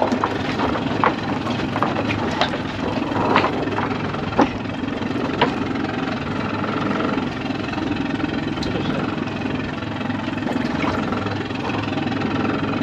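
Boat engine running steadily at idle, with irregular sharp knocks and clatters every second or so.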